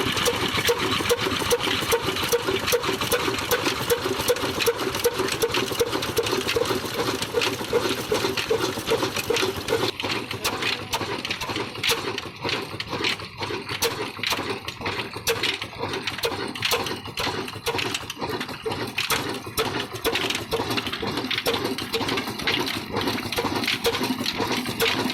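Old stationary diesel engine running with a steady, regular knocking beat. A lower hum under it fades about ten seconds in.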